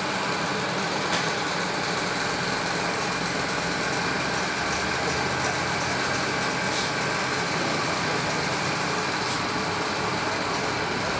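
Small engine running steadily at idle, with no change in speed.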